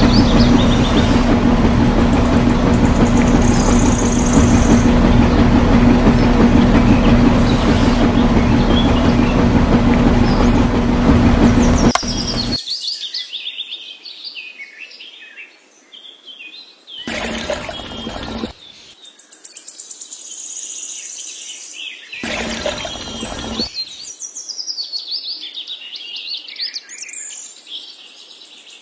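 A small motor running steadily with a low hum for about twelve seconds, then cutting off suddenly. Afterwards birds chirp in the quiet, with two brief louder noises a few seconds apart.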